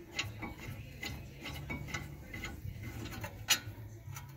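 A hand ratchet clicking in irregular strokes as it backs out a front brake caliper bracket bolt, with one sharper click about three and a half seconds in.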